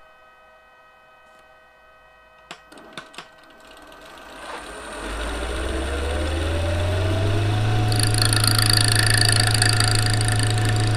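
Three short knocks, then a wood lathe starting up with an eccentric ash blank on the chuck: its motor whine rises in pitch for a few seconds, then runs steady over a low hum. A hiss joins about eight seconds in.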